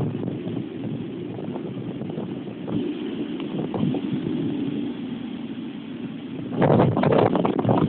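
Typhoon wind buffeting the microphone in uneven gusts, with a much stronger gust beginning about two-thirds of the way through.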